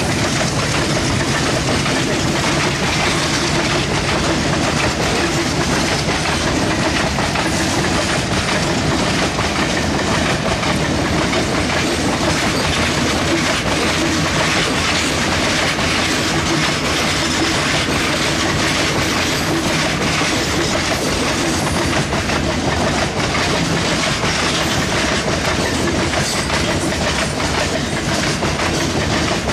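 Loaded freight wagons rolling past close by at speed: a steady, loud rolling noise of steel wheels on rails, with a continual clicking as the wheels cross the rail joints.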